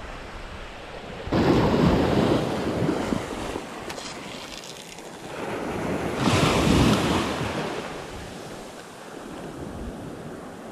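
Small surf waves breaking and washing up the beach, two swells of sound about five seconds apart, with wind buffeting the microphone.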